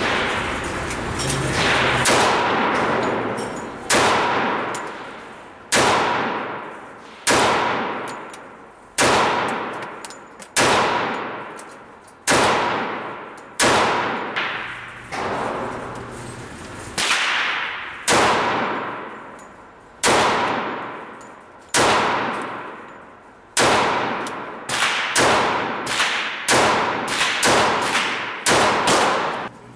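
A .45 ACP 1911 pistol firing shot after shot, each sharp report ringing and echoing in an indoor range. The shots come every second or two at first and quicken to about two a second near the end.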